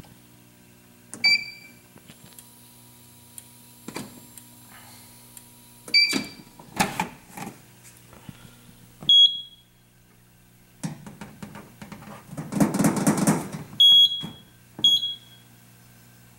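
A Simplex 4100U fire alarm control panel being worked: short electronic beeps and scattered clicks over a steady low hum, with a louder rustling stretch a little past the middle.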